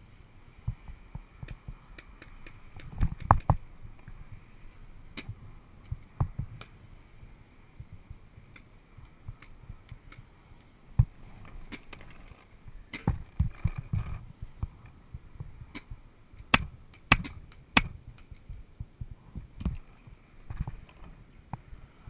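Scattered sharp pops and knocks, several coming in quick runs of three or four within about half a second: paintball markers firing during a game.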